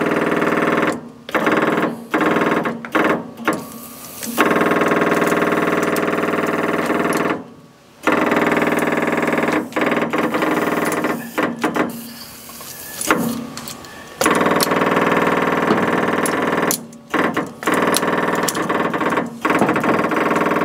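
An engine idling steadily, with sharp clicks and knocks over it. The sound cuts out abruptly several times and comes straight back.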